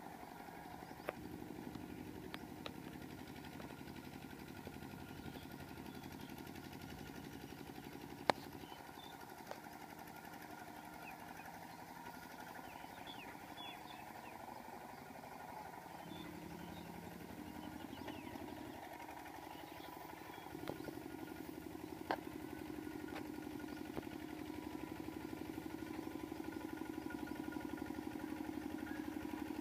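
Kubota RT120 walking tractor's single-cylinder diesel engine running steadily in a rhythmic chug, growing louder over the last third as the tractor comes closer. A couple of sharp clicks break in, one about 8 seconds in and another about 22 seconds in.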